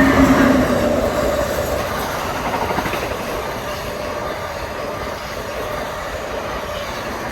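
Amtrak train hauled by an ACS-64 electric locomotive passing at speed: a loud rumble of wheels on the rails. A brief whine at the start dies out within the first second, and the sound then slowly fades as the train goes by.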